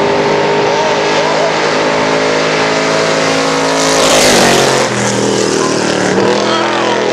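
Race truck's engine working hard as it climbs toward the listener and passes close by, loudest about four seconds in, its pitch dropping as it goes away.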